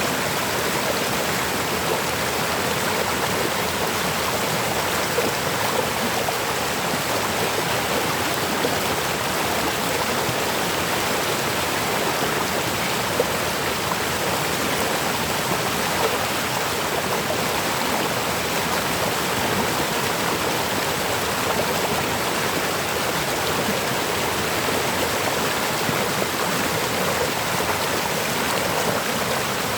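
River water flowing and splashing in a steady rush.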